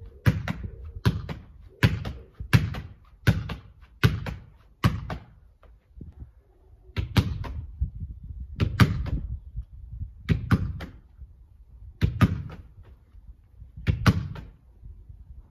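A football repeatedly thrown and kicked against a brick wall and caught on the rebound in goalkeeper gloves: a thud off the wall, then a smack of the gloves, every second or two.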